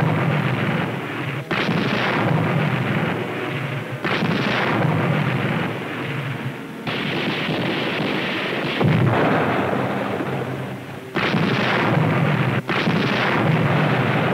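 Submarine deck gun firing, five heavy shots two to three seconds apart, each trailing a long rumble.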